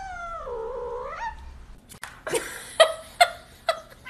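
A cat's long drawn-out meow that slides down in pitch and back up, lasting about a second and a half. After a short gap come four short, sharp cries about half a second apart, louder than the meow.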